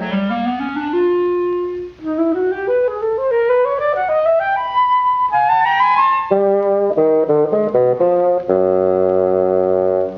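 Orchestral cartoon score: rising runs of pitched notes, a run of short quick notes, then a held chord about two thirds of the way in.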